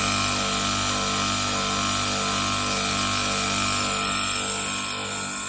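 Air conditioner outdoor unit's compressor running with no refrigerant charge, a steady loud vibrating hum and buzz that stops abruptly near the end. Its rubber mounts are worn out, so the compressor has sagged and touches the unit's metal body, making it vibrate against it.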